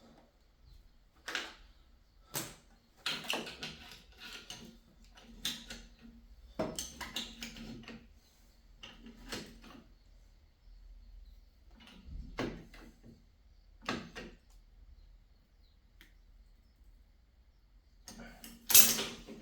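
Irregular metal clinks and scrapes of pliers and a wrench gripping and turning as a joint on copper pipe is tightened, with a louder clatter of tools near the end.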